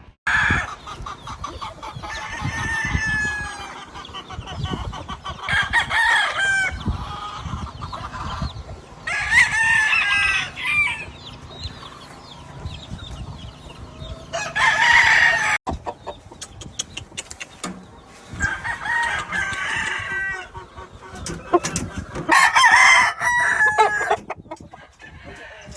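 Gamefowl roosters crowing, about six crows spread out with quieter stretches between, with some clucking.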